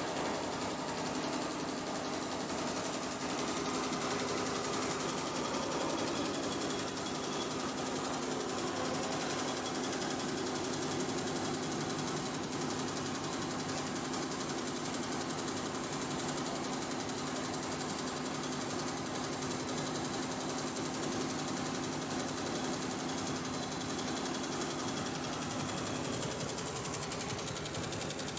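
Multi-head Barudan commercial embroidery machine running, its needles stitching together in a steady, rapid rattle.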